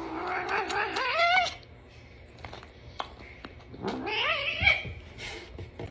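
Tabby cat giving two long, drawn-out meows: the first rises in pitch near its end, and the second comes about four seconds in.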